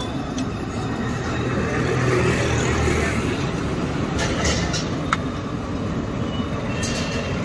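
Steady street traffic rumble with voices in the background. A metal spatula scrapes against the iron griddle about four seconds in and again near the end, with one sharp click in between.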